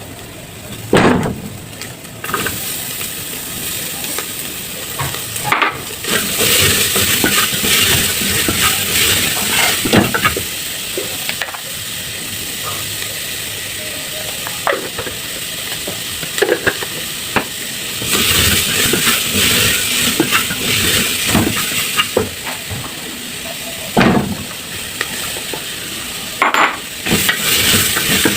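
Food sizzling in a pot on the stove while it is stirred, with a steady frying hiss and occasional short knocks of the spoon against the pot.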